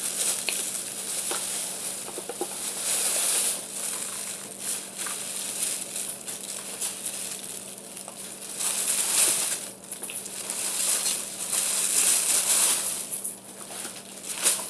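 Dry crackling crunch of hard, chalky arrowroot-mixture chunks being chewed, coming in waves, over a faint steady hum.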